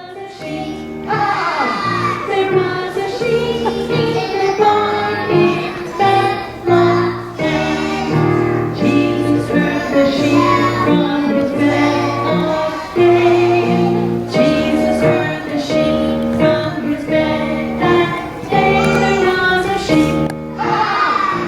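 A group of young children singing a Christmas song together over an instrumental accompaniment.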